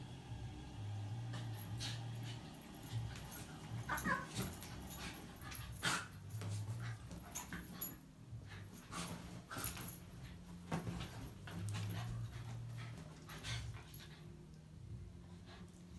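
A small terrier-type dog play-fighting with a cat on a bed: soft scuffles and thumps of paws and bodies on the bedding, with a brief dog whine about four seconds in.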